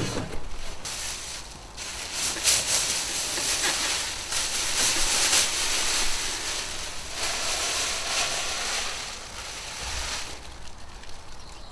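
Cardboard packaging being handled, rustling and scraping in irregular swells that die down near the end.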